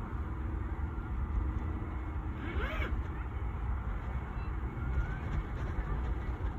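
Steady low rumble of an off-road electric skateboard rolling over grass and dirt. A brief call rises and falls about two and a half seconds in, with a few faint chirps.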